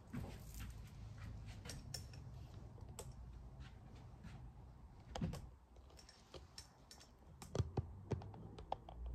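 Handling noise from the recording camera as it is moved: scattered light clicks and taps, with a few sharper ones about five seconds in and near the end, over a faint low hum.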